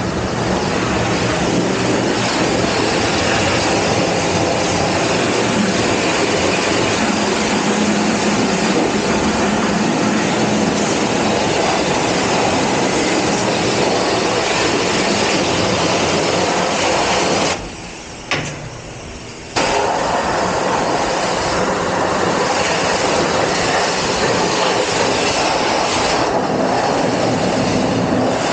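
Pressure-washer wand spraying a high-pressure jet of water onto the engine and frame of a stripped motorcycle, a loud steady hiss of spray. About two-thirds of the way in the spray stops for about two seconds, with one short spurt in the middle, then starts again.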